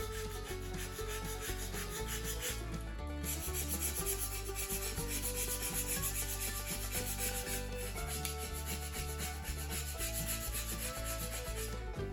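Background music with a steady beat and a bass line that steps to a new note every second or two.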